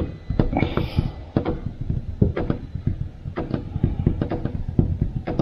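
An irregular run of quick knocks and bumps, several a second, with a short rustle about a second in.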